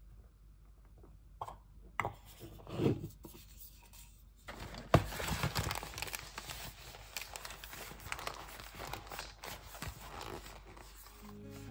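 Cardboard packaging being torn open: a sharp tear about five seconds in, then continuous crinkling and rustling as the box is handled. Before it, only soft handling sounds and a dull thump.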